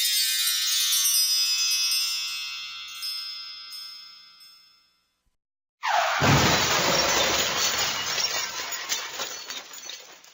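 Sound effects: shimmering chime-like tones ringing and fading out over about five seconds. After a short gap comes a sudden crash of breaking glass, with shards tinkling as it dies away.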